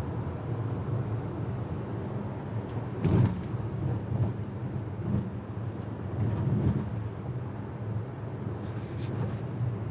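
Steady low rumble of a car driving, heard from inside the cabin, with a short knock about three seconds in and a brief hiss near the end.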